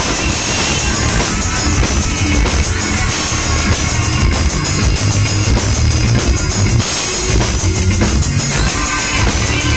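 Loud live electronic music played with a live drummer and bass player, heavy bass and drums, heard from among the audience.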